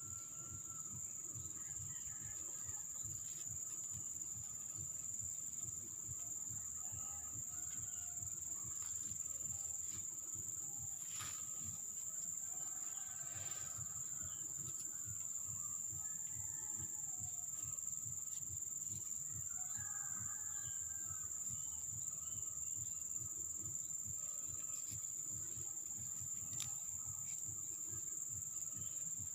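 Steady high-pitched chirring of insects, with faint bird chirps now and then and a low rumble underneath.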